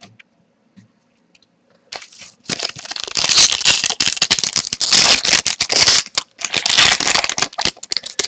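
A foil hockey card pack wrapper being torn open and crinkled, starting about two seconds in as a dense, crackly rustle that runs on to the end.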